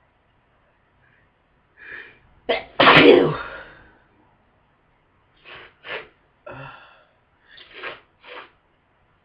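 A person with a heavy head cold sneezing: one big sneeze about three seconds in, after two short lead-in sounds, then several shorter, quieter sounds.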